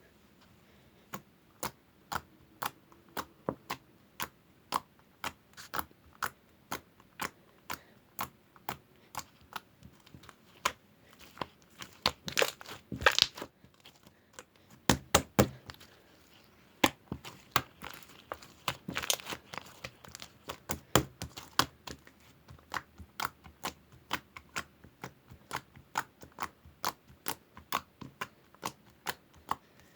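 Sparkly purple slime being squeezed and poked by hand, giving a run of sharp clicks and pops about two a second, with denser crackling bursts a little before halfway and again about two-thirds of the way in.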